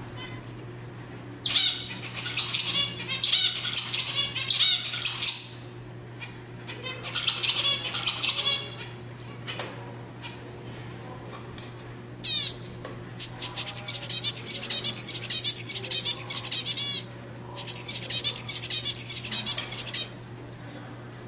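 Zebra finch singing in four bouts of rapid, buzzy, repeated notes, with short pauses between them, over a steady low hum.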